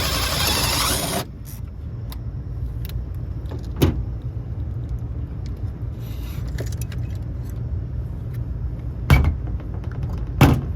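Hand tools and parts handled while a control transformer is swapped out: a few sharp clicks and knocks, about 4 s in and twice near the end, over a steady low rumble. A burst of hiss fills the first second.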